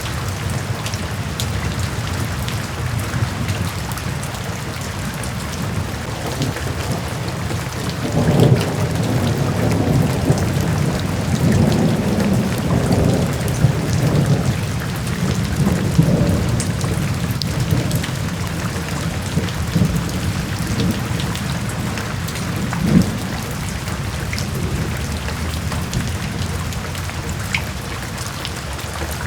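Steady rain falling, with a low roll of thunder building about eight seconds in and rumbling for several seconds before fading.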